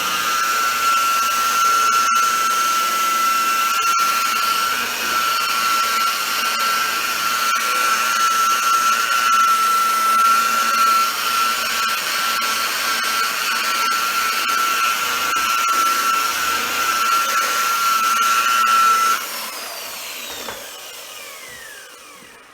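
Electric buffer with a foam pad running at steady speed, its motor giving a high whine as it polishes compound on a plastic headlight lens. About three seconds before the end it is switched off and winds down, its pitch falling.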